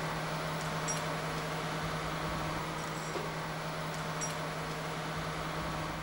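Steady low machinery hum with one constant low tone, and a few faint light clicks.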